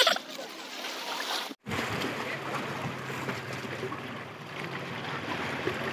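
Seaside wind and wave noise, a steady wash with a low steady hum under it. A short knock at the very start, and the sound cuts out for an instant about one and a half seconds in.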